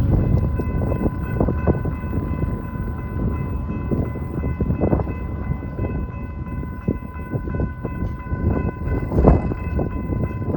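A locomotive horn's chord held steadily, over a train's low rumble and heavy wind buffeting the microphone. The horn stops right at the end, and the biggest gust comes near the end.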